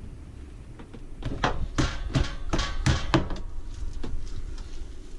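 Hands handling something at a kitchen sink: a run of quick, sharp knocks and rustles starting about a second in and lasting about two seconds, over a low steady hum.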